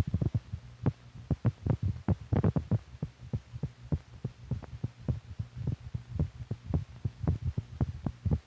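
Recorded heart sounds: repeated short low thumps and clicks, beat after beat, over a steady low hum.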